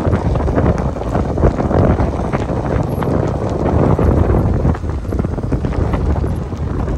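Chevrolet Silverado 1500 pickup on tyre chains driving slowly past through deep snow: engine running, with the chains clinking and crunching in the snow as many quick clicks. Wind buffets the microphone.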